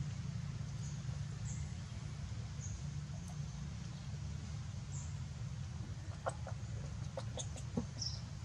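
Birds calling in the background: short high chirps every second or two, then a run of brief sharper calls in the last couple of seconds, over a steady low rumble.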